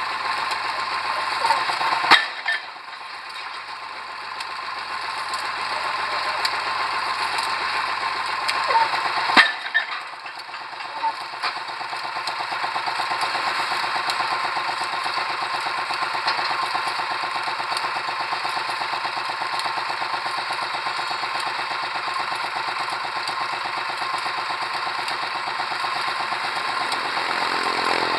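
Pile-driving machinery running steadily with a fast mechanical chatter, broken by two sharp bangs, about two seconds and about nine seconds in.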